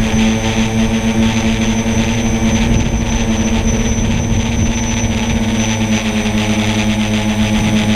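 Brushless motors and 9x4.5 propellers of a tricopter in flight, heard from the onboard camera: a steady whine of several close tones over a rush of air. The pitch wavers about three seconds in, then settles again.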